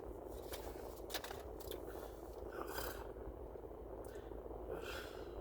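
Soft scraping and clicking noises close to the microphone, with a couple of breaths: the small sounds of a person at a meal between bites and handling food.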